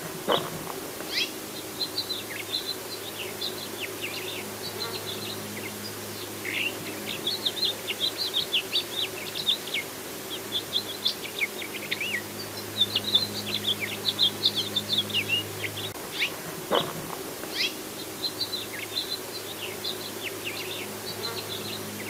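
House finch song from a recording: a loose, musical chatter of quick warbled and chirped notes, over a faint steady hum from the playback, with a click about 17 seconds in.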